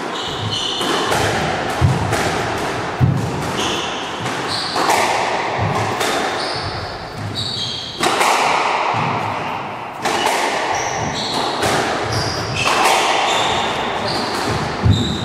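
A squash rally: the rubber ball smacked by rackets and hitting the court walls in quick succession, each hit ringing around the enclosed court, with a few heavier thuds. Short high squeaks of players' shoes on the wooden floor come between the hits.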